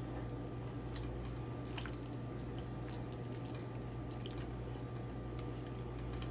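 A thick bean, corn and rice soup being stirred in a pot with a spatula: scattered soft wet pops and clicks over a steady low hum.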